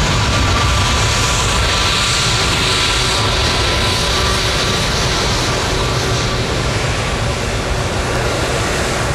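Jet airliner's engines running loud and steady with a deep rumble, and a high whining fan tone that fades over the first few seconds.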